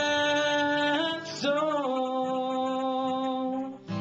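A young man singing a country ballad, holding two long drawn-out notes with a change of pitch about a second in, over acoustic guitar.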